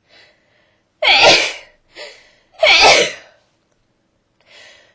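A person with a cold sneezing twice, about a second and a half apart, with short breaths drawn in before the sneezes.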